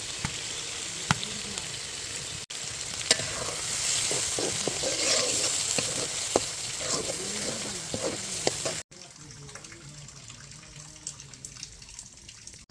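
Beef brain being stir-fried in oil in a pan: a steady sizzle with scattered sharp clicks and scrapes of a spatula. The sound drops out briefly twice, and after the second break, about three quarters of the way in, the sizzle is quieter.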